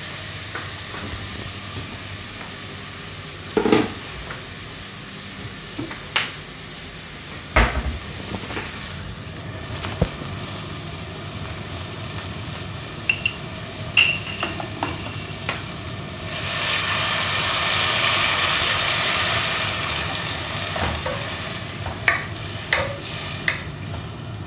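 Tomatoes and ginger sautéing in oil in a pot, sizzling steadily, with scattered sharp clicks and knocks as a plastic water bottle is handled. The hiss swells louder for a few seconds about two-thirds of the way in.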